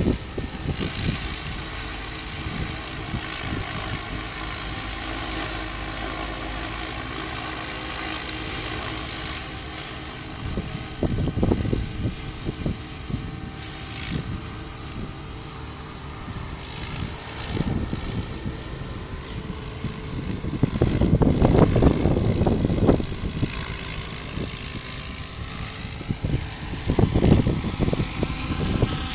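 Radio-controlled F3C aerobatic helicopter flying, its rotor and drive giving a steady whine of several even tones. Strong wind gusts buffet the microphone with a low rumble several times, heaviest about two-thirds of the way through.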